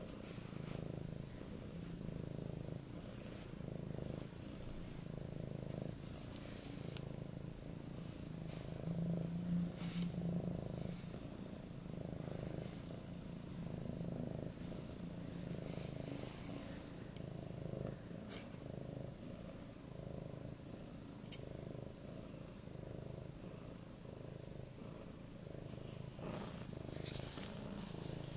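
An eight-month-old Siberian cat (Neva Masquerade) purring loudly while having its head stroked: a steady low purr that swells and fades about once a second, briefly louder about nine seconds in.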